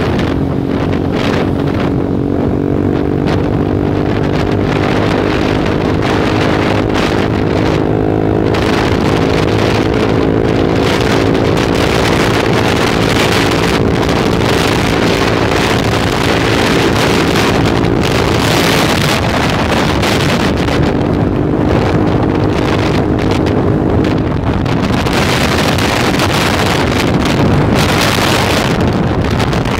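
Heavy wind buffeting on the microphone while riding a motor scooter, with the scooter's engine running at a steady pitch underneath. The engine note drops away about two-thirds through, returns for a few seconds, then leaves mostly wind.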